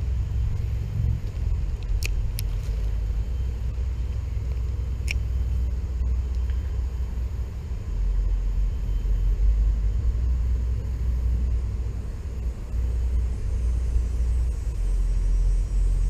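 Wind buffeting the microphone: a steady, uneven low rumble, with two or three faint sharp clicks in the first few seconds.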